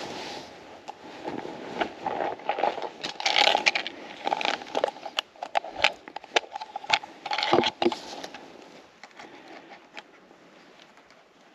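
A run of irregular crackles, snaps and scrapes, busiest from about one to eight seconds in, then fading away.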